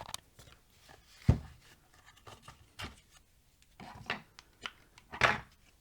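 Plastic housing of a cordless angle grinder being pried apart with a spudging tool: scattered scrapes and clicks, with one sharp click about a second in.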